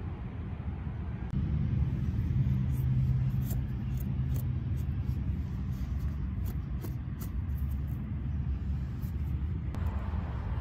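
Low rumble that grows louder about a second and a half in and then holds, with faint scattered ticks above it.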